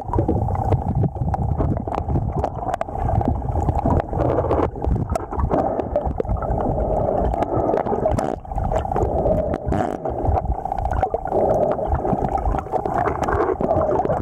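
Muffled underwater noise of moving river water around a submerged camera: a dense low rumble with scattered clicks and knocks.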